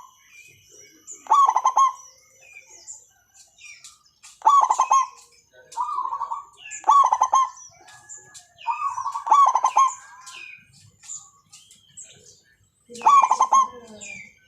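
Zebra dove (perkutut) cooing: about six separate bursts of rapid, pulsed coos, with thin high chirps between them and a longer pause before the last burst near the end.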